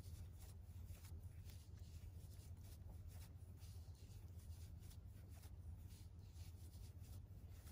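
Faint scratchy rustling of a crochet hook drawing yarn through stitches while double crochets are worked, several soft strokes a second over a low steady hum.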